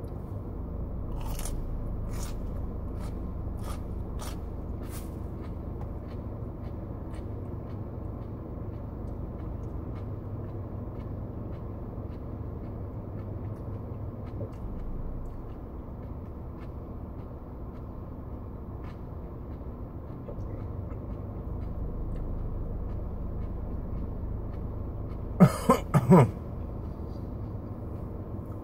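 A man coughs three or four times in a short loud fit about 25 seconds in, his throat burning from the habanero peppers he is eating. A steady low hum of the car interior runs underneath, with a few faint mouth clicks from chewing in the first five seconds.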